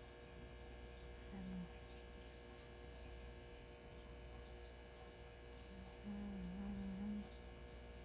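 Steady low electrical hum throughout, with a short low spoken word about a second in and a low voice sounding for about a second near the six-second mark. No cockatiel calls stand out.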